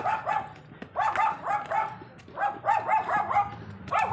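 A dog barking in quick runs of three to five short, high barks, with a short pause between runs.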